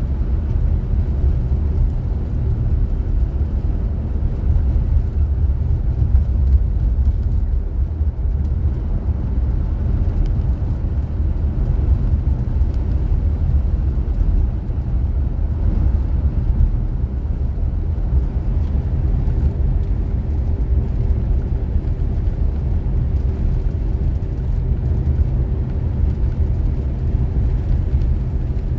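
Steady low rumble of a car driving at road speed, tyre and engine noise heard from inside the cabin.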